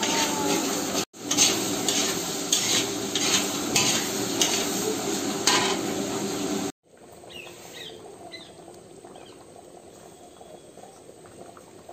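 Masala frying and sizzling in a large iron kadai while a metal ladle scrapes and stirs it, in repeated scraping strokes somewhat faster than one a second. About two-thirds of the way in it cuts off sharply to a much quieter stretch of the curry simmering.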